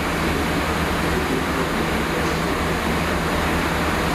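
Diesel locomotive running steadily as it approaches along the platform line: a constant low engine hum under an even rushing noise.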